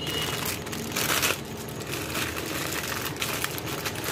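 Rustling, crinkling handling noises with a few light knocks, loudest about a second in, as a small aluminium pot holding water and Maggi noodle cakes is handled.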